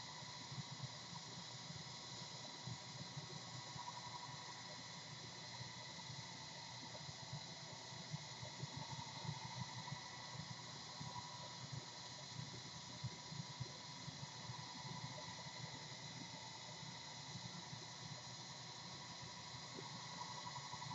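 Faint steady hiss of room tone, with a few light ticks scattered through it.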